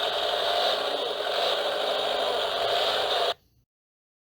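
Recorded construction-vehicle engine sound effect played through a children's sound book's small, tinny speaker, running steadily and then cutting off abruptly about three and a half seconds in.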